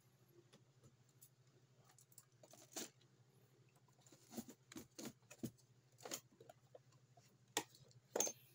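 Near silence: a faint low hum, with scattered soft clicks and rustles from about three seconds in, about eight in all.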